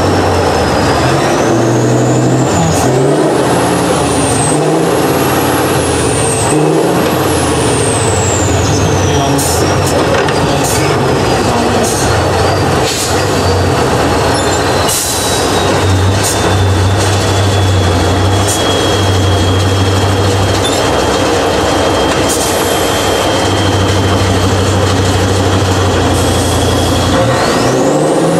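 Tatra 815 6x6 trial truck's diesel engine working hard as the truck crawls over a steep obstacle, with a high whistle that rises and falls with the throttle. Several short, sharp hisses come in the middle.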